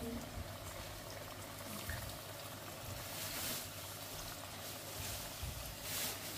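Boiled macaroni tipped and pushed by hand from a mesh strainer into a pot of masala sauce cooking on a gas stove, over a steady hiss from the pot. Brief louder rustling swells about three seconds in and again near the end.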